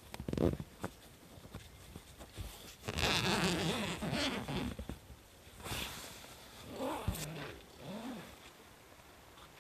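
A tent door's zipper pulled open in several strokes, the longest and loudest about three seconds in, its rasp rising and falling in pitch with the speed of the pull.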